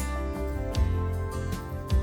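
Background music with guitar, a steady bass and light percussion hits.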